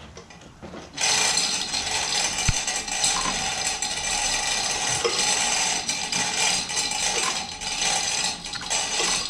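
A jack being let down to lower the ATV onto its wheel: its mechanism makes a continuous mechanical clatter that starts about a second in and keeps on.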